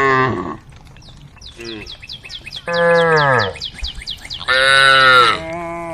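Cows mooing: one call trails off just after the start, a second falls in pitch about three seconds in, and a third comes near the end. Between the calls a bird chirps in a fast, even run of short high notes.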